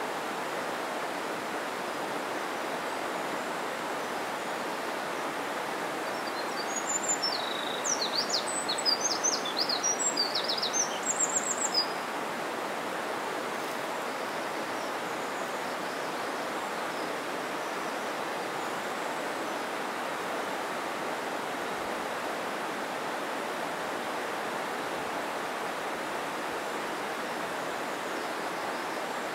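Steady rush of a mountain stream's flowing water. For a few seconds about a quarter of the way in, a small bird sings a quick run of high chirps over it.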